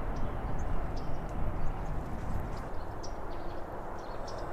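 Outdoor ambience: wind on the microphone makes a steady low rumbling hiss, easing slightly about three seconds in. Scattered short, high bird chirps sound over it.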